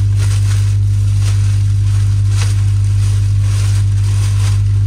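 Thin plastic protective wrap crinkling and rustling as it is pulled off a truck seat and bunched up by hand, in scattered soft crackles. A loud steady low hum runs underneath throughout.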